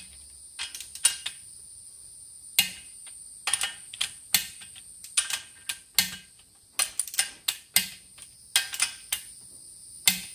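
Torque wrench clicking and ratcheting on the flex plate bolts of a Cummins 5.9 diesel crankshaft: sharp metallic clicks in irregular small groups, about one every half second to a second. A steady high-pitched whine sits under the clicks.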